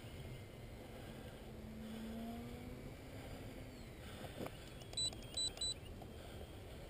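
Faint hum of a distant small electric RC plane's motor, a low tone drifting slightly in pitch that fades out about four seconds in. About five seconds in come three short, high electronic beeps in quick succession.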